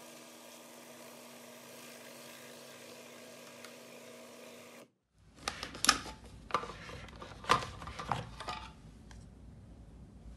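Food processor motor running steadily while pureeing walnuts, cutting off about five seconds in. Then several sharp plastic clicks and knocks as the processor's bowl and lid are handled.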